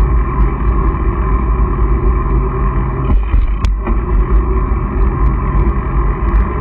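Steady rush of wind buffeting the microphone and tyre noise from a mountain bike rolling along a paved road, with a single sharp click about three and a half seconds in.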